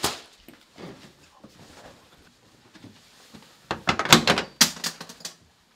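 A wooden panelled interior door being handled and opened: a burst of sharp knocks and rattles lasting about a second and a half, starting nearly four seconds in, after a couple of softer short sounds near the start.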